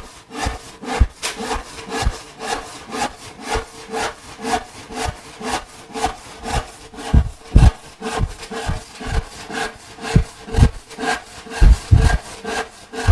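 A fine-toothed 12-point-per-inch hand panel saw crosscutting a board, in a steady rhythm of about two strokes a second.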